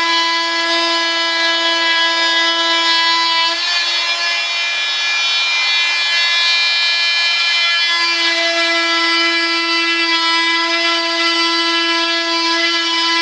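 Oscillating multi-tool (vibrating saw) running with a steady high buzz. From about 3.5 to 8 seconds in, its buzz gives way to a rougher rasping as the blade bites into the fibreglass gear-door sheet, then the steady buzz comes back.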